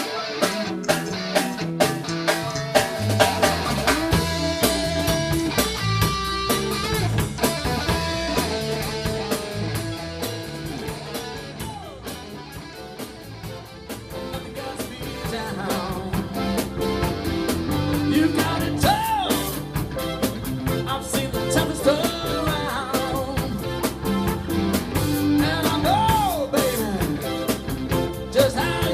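A pop-rock band playing live with electric guitar, bass and drum kit, a voice singing over it, in a rough rehearsal recording. The playing drops back for a softer stretch in the middle, then builds up again.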